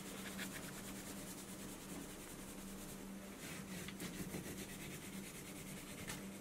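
Green wax crayon scribbling back and forth on paper, a faint steady rubbing as the background is colored in.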